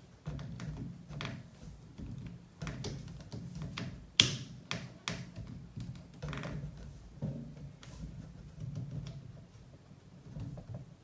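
Irregular clicks and taps of a screwdriver and plastic parts on an RC truck chassis as the fuel tank is pressed down and its retaining clip is forced through, with one sharper knock about four seconds in.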